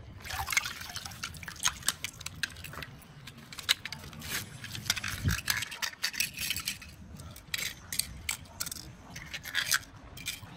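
Small die-cast metal toy cars clicking and scraping against each other and on wet concrete as they are handled and set down, many quick irregular clicks, with some water splashing and dripping.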